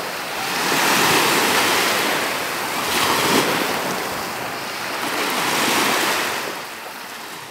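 Sea waves washing in, swelling and ebbing every two to three seconds, then fading out near the end.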